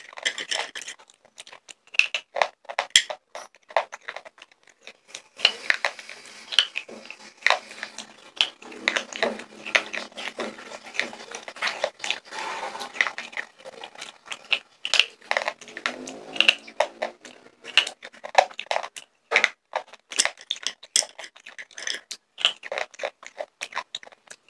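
Slate pencils bitten and crunched right at a small handheld microphone: irregular crisp snaps and crunches, several a second, with chewing between.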